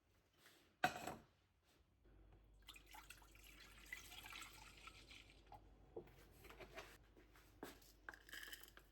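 Faint liquid running or pouring, with a sharp knock about a second in and a few light clicks.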